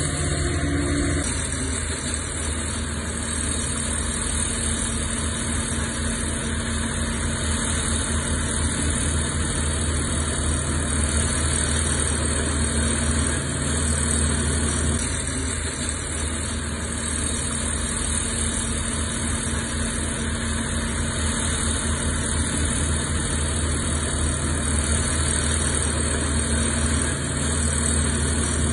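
Heavy diesel engine of earthmoving equipment running steadily, its low tone shifting slightly about a second in.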